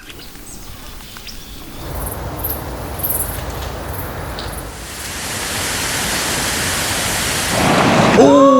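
Steady rushing water, growing louder about halfway through. In the last half second a short pitched sound rises and then falls.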